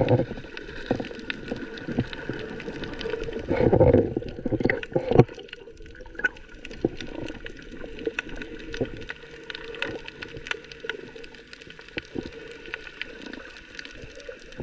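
Underwater sound picked up by a submerged camera near snorkelers: muffled water movement with a few louder swishes and thumps in the first five seconds. After that comes a quieter run of scattered crackling clicks.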